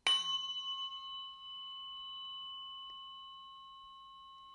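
A 174 Hz tuning fork struck once, then ringing steadily with a clear high ring that slowly fades, over a brief low hum at the start.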